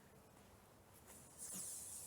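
A sparkler fizzing: after near silence, a steady high hiss comes in about one and a half seconds in.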